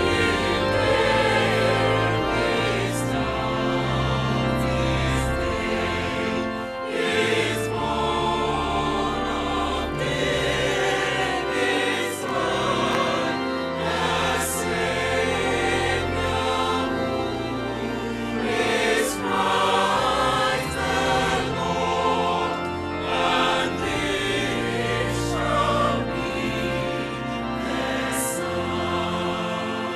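A gospel choir singing in full harmony over organ and bass accompaniment, with a few brief sharp hits from the band.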